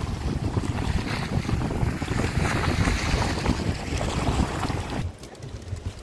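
Wind buffeting the microphone over the steady wash of sea waves breaking on the shore rocks. About five seconds in it cuts off to a much quieter background.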